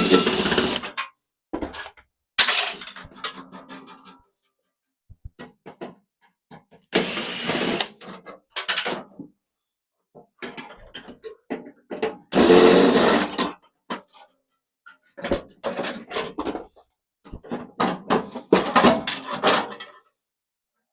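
Tools working the magnetron out of a microwave's metal housing: short bursts of mechanical noise about a second long, several times, with clicks and clinks of metal parts between.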